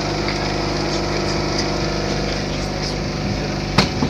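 Vintage wooden Lisbon tram in motion, heard from inside the carriage: a steady hum from the motor and running gear, with one sharp knock near the end.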